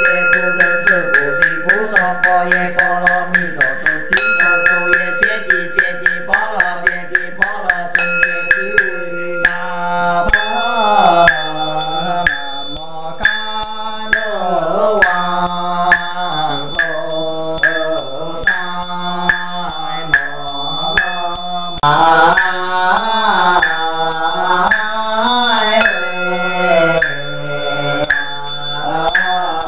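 Buddhist chanting: voices intone a sutra in a slow, even sing-song, kept in time by a regular knocking beat. The beat is quick and close-packed for the first nine seconds or so, then slower while the voices come forward.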